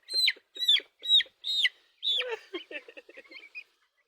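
Two-week-old broiler chicks peeping: a run of loud, high, downward-sliding peeps about twice a second, followed by a looser cluster of softer chirps that fade out near the end.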